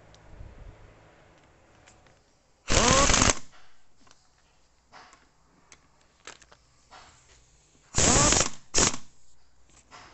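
A cordless impact wrench with a 12 mm socket on an extension runs bolts down into an automatic transmission case. There are three short bursts: one about three seconds in and two close together near the end. Each starts with a rising motor whine and goes into rapid hammering.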